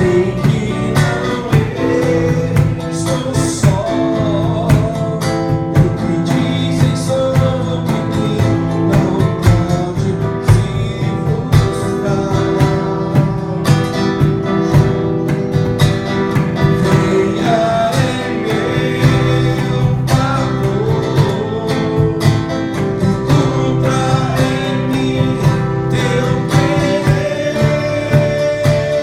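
A man singing a praise song while strumming an acoustic guitar in a steady rhythm.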